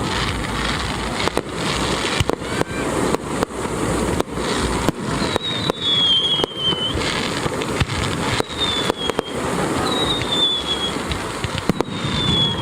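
Fireworks going off: a dense run of sharp bangs and crackle, with high whistles that slide slightly down in pitch, four of them from about five seconds in.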